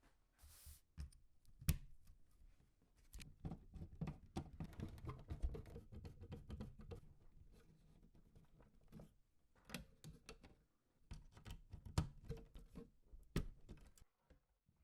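Hands handling PC-build parts: a string of small clicks, taps and knocks, with a brief rustle just under a second in and a few louder knocks near 1.7, 10 and 12 seconds.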